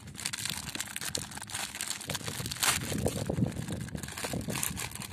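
Plastic packaging crinkling and rustling continuously as a new toy truck is unwrapped and handled.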